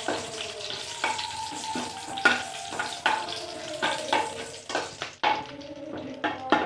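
Whole spices (bay leaves, cloves, cinnamon, cardamom) sizzling in hot ghee in a kadai, stirred with a metal spatula that scrapes and clicks against the pan many times at an uneven pace.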